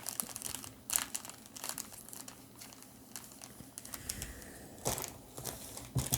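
Foil Pokémon booster pack wrappers and cards being handled and torn open: irregular crinkling and crackling, with a few louder rustles about a second in and again near the end.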